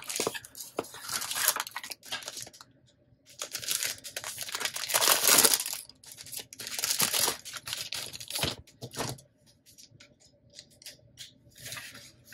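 Clear plastic pen wrapping crinkling and a paper sleeve rustling as a set of pens is unwrapped by hand. The crinkling comes in irregular bursts and is loudest about halfway through, with quieter paper handling later.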